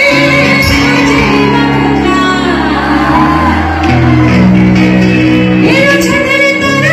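Live band music played loud through a stage sound system, a woman singing a Nepali song into a microphone, with shouts and whoops from the crowd.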